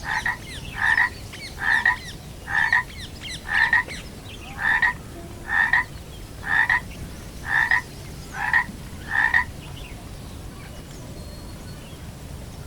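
A frog croaking about ten times, roughly once a second, in a steady even series that stops a few seconds before the end.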